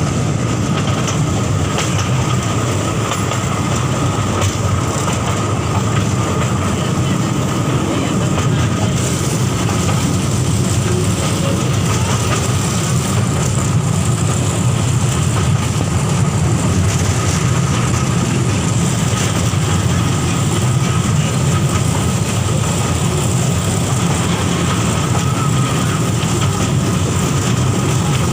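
Toy train running steadily along its track, heard from on board.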